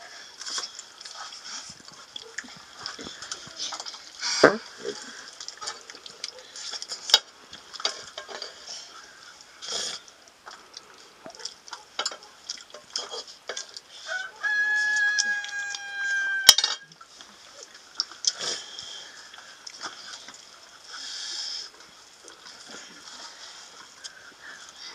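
Scattered small clinks and scrapes of fingers and a spoon on steel plates as children eat rice. About fifteen seconds in, a rooster crows once, a held call of about two seconds.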